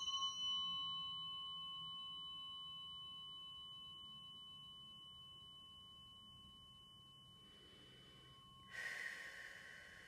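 Biofield Tuning tuning fork ringing after a strike, several clear high tones fading slowly. About nine seconds in it is struck again and rings out afresh.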